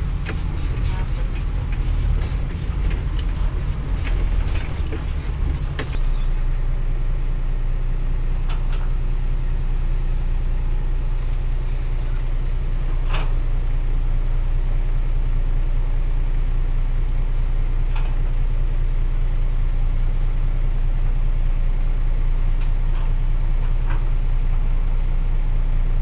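Heavy diesel engine running with a low, steady rumble. For the first six seconds or so it is louder and uneven, as heard from inside a moving dump truck's cab, then it settles into an even drone with a few faint clicks.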